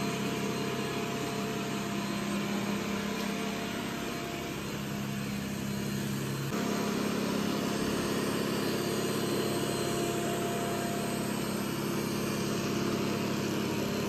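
Robot vacuum-mop running as it sweeps and mops a hard floor, a steady motor hum. About six and a half seconds in, its pitch shifts and it gets slightly louder.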